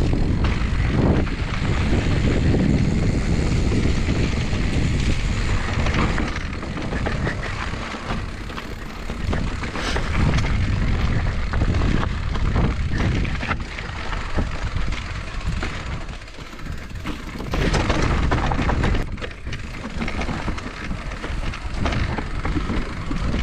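Mountain bike riding downhill over dirt singletrack and rock slabs: a continuous rumble of tyres and wind on the handlebar-mounted camera, with frequent knocks and rattles from the bike over bumps.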